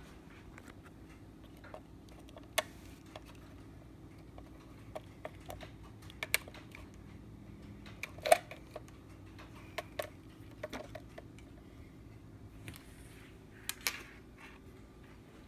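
Scattered small clicks and knocks from handling telephone wiring at a wall jack and a desk phone, the loudest about eight seconds in, over a faint steady low hum.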